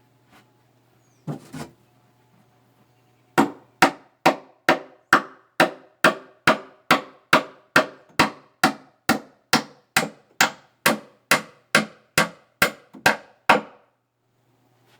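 A hammer striking wood in a steady run of about two dozen blows, roughly two a second, each with a short ring, after a couple of lighter knocks.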